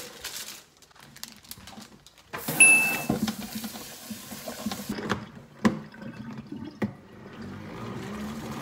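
Water from a pull-out kitchen faucet sprayer runs over bean sprouts in a plastic salad-spinner basket in a stainless steel sink. It starts about two seconds in, and plastic knocks against the metal sink several times.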